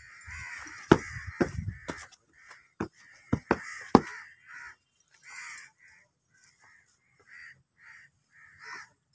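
Crows cawing over and over, many short calls through the whole stretch. Several sharp knocks cut through in the first four seconds and are the loudest sounds.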